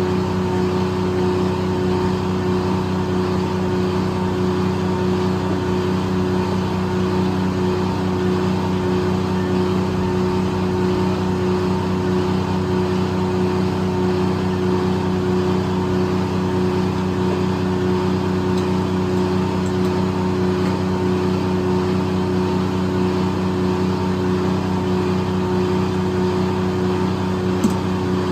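Circle sawmill's engine running at a steady speed, an unchanging drone.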